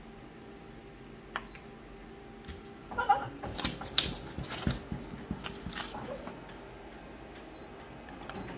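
Paper rustling and sliding with several knocks as a sheet is handled on an office photocopier's glass, between short key beeps from its control panel. The copier's steady hum runs beneath.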